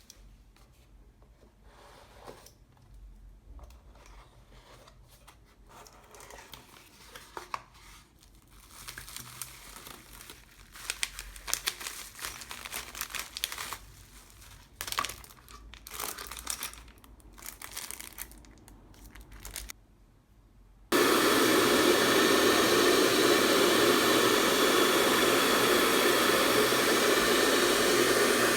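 Faint small clicks and crinkling rustles of handling. Then, about twenty seconds in, an electric hair-dryer-type blower switches on suddenly and runs loud and steady.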